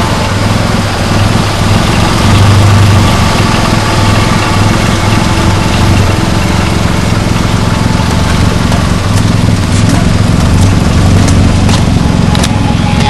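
Exhaust note of a 2300 Abarth car's engine running steadily at low revs.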